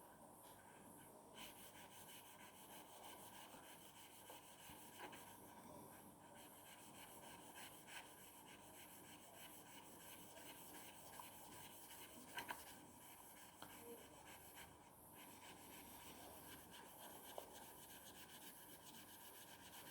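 Faint, steady rubbing of a stainless steel broadhead blade stroked along wet 1500-grit wet-and-dry sandpaper, with a few light clicks.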